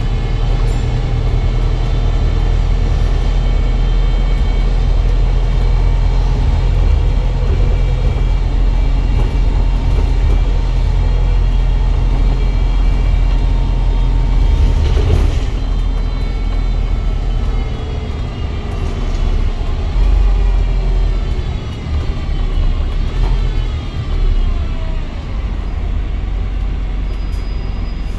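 Wright StreetDeck double-decker bus on the move, a steady low engine drone under several high whirring whines. About halfway through there is a short hissing burst, and in the last third the whines slide down in pitch as the bus slows.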